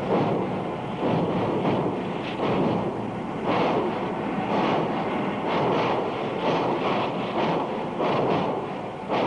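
Two double-headed steam locomotives pulling away, their exhausts out of beat with each other: uneven chuffs about once a second over a steady rushing noise.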